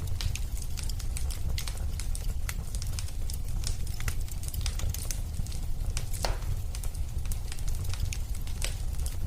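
Wood fire crackling: a steady low rumble with scattered irregular pops and snaps, one louder pop about six seconds in.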